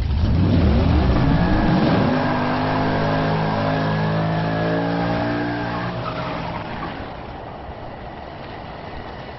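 Car engine revving up, its pitch climbing over the first two seconds, then holding steady and easing slightly lower as the sound gradually fades out.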